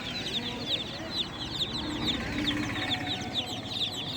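A brood of newly hatched chicks chirping together: a dense, continuous stream of short, high, falling peeps.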